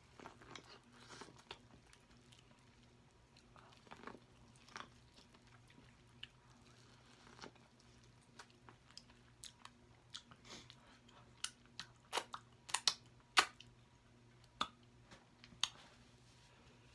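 Close-miked chewing and biting of sauce-dipped corn on the cob, with soft clicks that turn into a run of sharper, louder crunches near the end.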